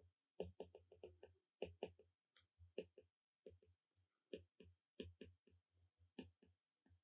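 Stylus tip clicking and tapping on a tablet's glass screen during handwriting: a faint, quick, irregular series of small clicks with brief pauses.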